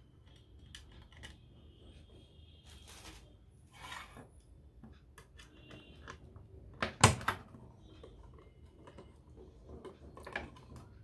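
Small clicks, taps and scrapes from handling a plastic speaker box's casing and driving its screws, with one sharp knock about seven seconds in.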